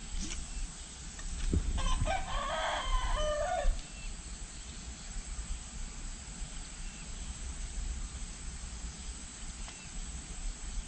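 A rooster crows once, starting about two seconds in and lasting just under two seconds, its pitch holding and then dropping at the end. A steady low rumble runs underneath.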